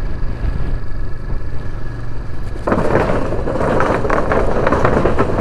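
Motorcycle running along the road, then about halfway through its tyres roll onto the wooden plank deck of a steel suspension bridge and the loose boards clatter loudly.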